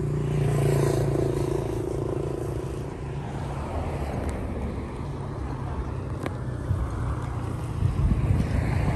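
Steady low rumble of road traffic, with a single sharp click about six seconds in.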